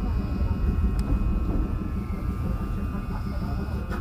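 Steady low hum of a stationary Iyo Railway electric train's onboard equipment while it waits at the platform, with a faint steady whine over it. Two light clicks come about a second in and near the end.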